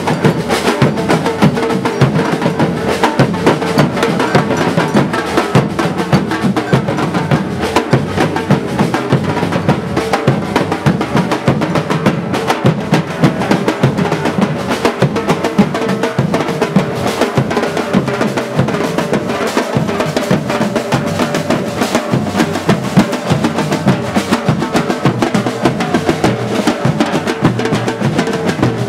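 Festival drums beating a fast, continuous rolling rhythm, with a steady held note sounding beneath them.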